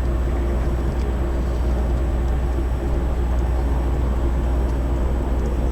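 Steady low rumble of harbour ambience at a departing ship, with a faint steady hum over it.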